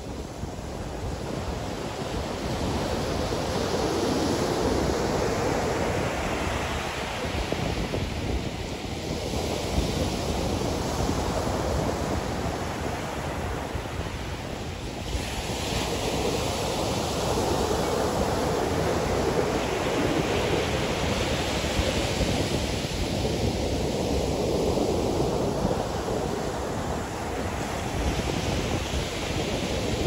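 Ocean surf: small waves breaking and washing up a sandy beach, the hiss of foam swelling and fading every few seconds.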